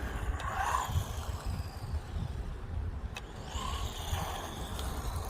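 Wind buffeting the microphone, with the high whine of a small RC buggy's electric motor and drivetrain rising and falling as it drives, and a sharp click about three seconds in.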